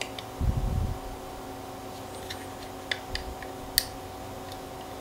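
Plastic housing clips of a MakerBot Smart Extruder being pried apart with a knife blade: a brief low rumble of handling about half a second in, then a few small sharp plastic clicks, the loudest a little before four seconds in.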